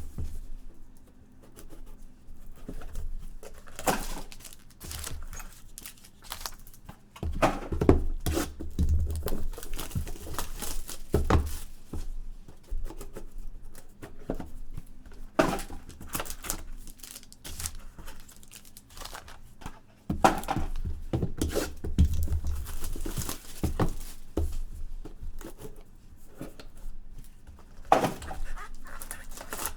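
Trading card packaging being opened and handled: tearing and crinkling of wrappers and cardboard, with scattered knocks and thumps as boxes are set down and moved.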